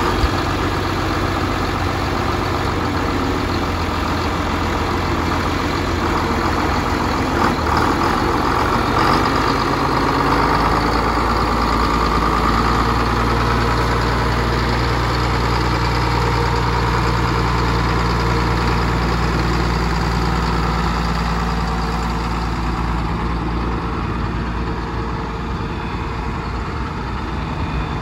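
John Deere 4560 tractor's six-cylinder diesel engine running steadily as the tractor is driven across grass. Its engine note shifts about ten seconds in.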